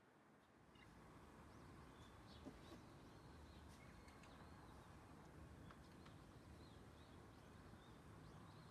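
Near silence: faint outdoor background with small birds chirping now and then, and one short click about two and a half seconds in.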